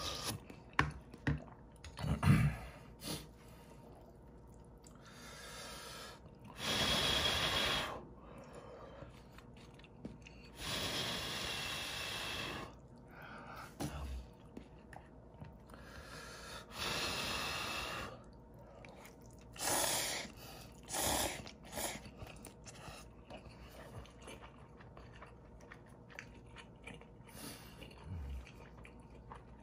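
Instant ramen noodles (Anseongtangmyeon) being slurped up from the bowl in several long slurps of a second or two each, with chewing between them. A few sharp knocks come in the first few seconds.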